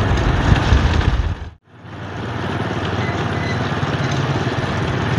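Wind buffeting the microphone and motorcycle road noise while riding, a heavy uneven rumble. About a second and a half in the sound cuts out abruptly and comes back as a steadier, less rumbly rush.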